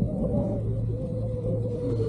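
Ski-resort gondola cabin running down its haul rope: a steady whine that sinks slightly in pitch over a low hum and rumble.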